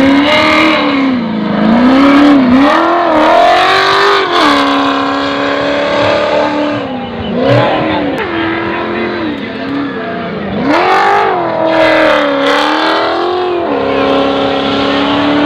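Rally car engine revving hard at full throttle, its pitch repeatedly climbing and then dropping with gear changes and lifts as the car slides on the dirt. It holds a steady high note for a couple of seconds at a time, around four seconds in and again near the end.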